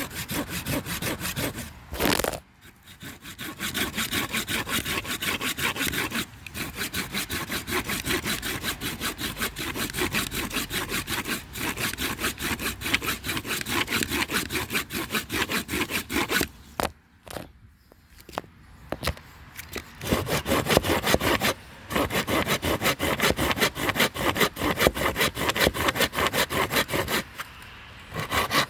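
A saw cutting wood in quick, even back-and-forth strokes, several a second. It stops briefly about two seconds in, pauses longer a little past the middle, then carries on.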